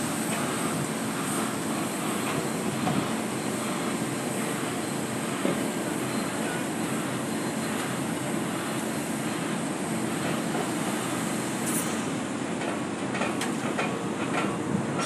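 Heavy machinery running steadily, the crane lifting and swinging the loaded rack, with a few faint metallic clicks near the end.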